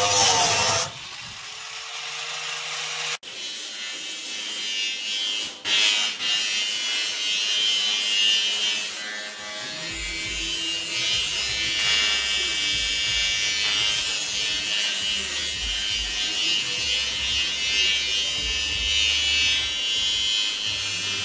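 Electric arc welding on an aluminium boat hull: a steady buzzing hiss, broken by a few abrupt cuts in the first few seconds.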